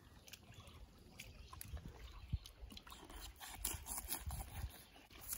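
Faint, irregular crunching and scraping of a knife cutting into a whole fish on a cutting board, the sounds growing busier in the second half.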